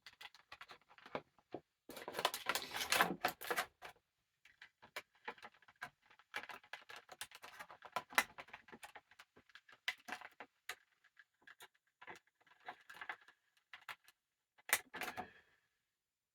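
Hands opening plastic-and-cardboard action-figure packaging: irregular crinkling, rustling and small plastic clicks, with a denser stretch of rustling about two to four seconds in and a sharp crackle near the end.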